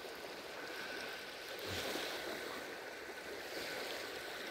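Faint outdoor ambience: a soft, even hiss that swells slightly about two seconds in and again near the end, with a thin, steady, high whine underneath.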